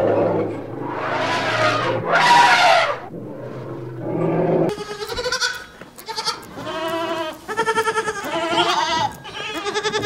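Elephants give two loud, noisy calls in the first few seconds. From about five seconds in, a barnful of white dairy goats bleats over and over, one wavering bleat after another.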